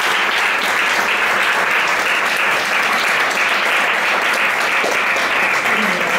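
A small audience clapping steadily.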